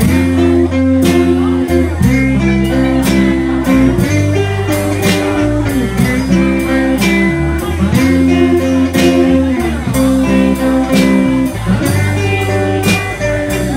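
Live band playing an instrumental passage: electric guitars and bass guitar over a drum kit keeping a steady beat, with guitar notes bending in pitch.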